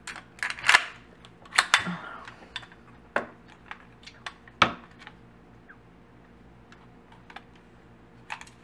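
Clicks and clacks of a Umarex 40XP CO2 BB pistol being handled: a handful of sharp clacks over the first five seconds, then a few faint ticks.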